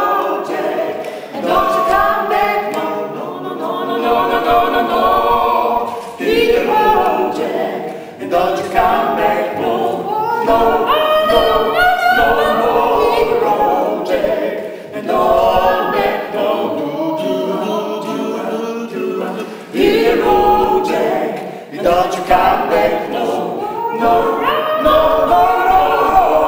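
Mixed vocal ensemble of three women and two men singing a cappella in harmony, phrase after phrase with short breaths between.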